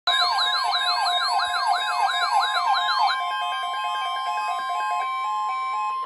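Several weather-alert radios sounding their alarms together for a tornado watch. A steady alert tone runs underneath, a siren-like warble cycles about three times a second and stops about halfway, and a stepped beeping pattern carries on. All of it cuts off sharply at the end.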